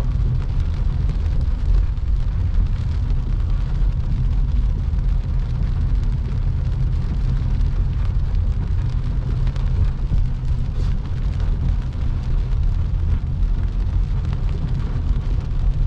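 Car driving on a rain-soaked road, heard inside the cabin: a steady low rumble of engine and road noise with a fainter hiss from the tyres on the wet road.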